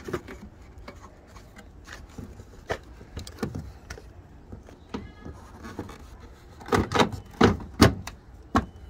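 Plastic knocks and clicks as a 2012 Nissan Sentra's tail light housing is handled and pressed back into place in the car body, scattered at first, with a run of louder knocks about seven seconds in.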